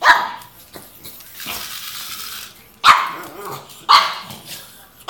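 A pug barking: three short, sharp barks, one at the start, one about three seconds in and a third about a second after that.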